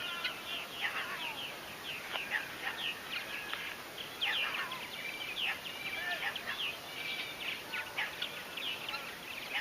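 A flock of purple martins calling: a dense, continuous chorus of many short, overlapping chirps, many of them sliding down in pitch.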